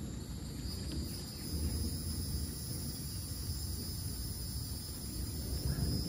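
Insects trilling steadily in thin, high tones, a second higher trill joining about a second in, over a low rumble as a thunderstorm approaches.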